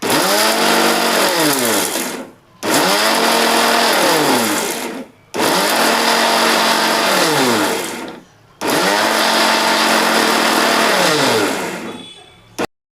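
Electric mixer grinder (mixie) run in four short pulses of two to three seconds each, its motor whine rising as it spins up and falling as it coasts down, with the rattle of crushed dry ginger and whole spices being ground to powder in the jar. The grinding is done in pulses, not continuously.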